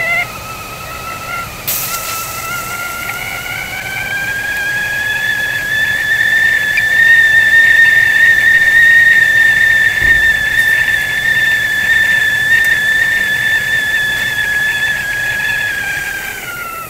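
Whistling tea kettle whistling at the boil, a shrill tone with a second tone above it. The pitch climbs and grows louder over the first few seconds, holds steady, then slides down near the end. A brief click sounds about two seconds in.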